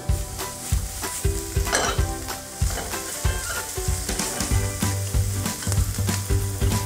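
Food frying in oil in a pan, sizzling steadily, while a utensil stirs and scrapes it around the pan.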